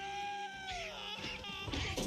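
An animated caterpillar character screams one long, high held cry that slides down in pitch after about a second. A shorter cry and a rush of noisy film sound effects follow near the end.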